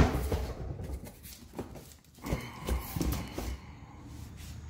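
Cardboard shipping box and bubble wrap being handled as the box is opened: rustling and crinkling, loudest at the start, with a few light knocks about halfway through.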